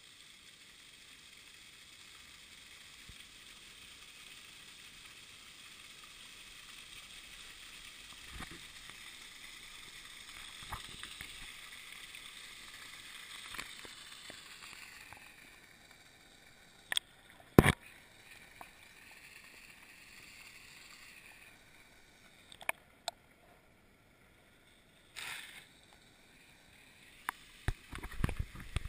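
Small waterfall and stream water rushing in a steady hiss, fading about halfway through. Over the second half come several sharp knocks and taps of the camera being handled at the water's edge, the loudest a close pair about two-thirds of the way in.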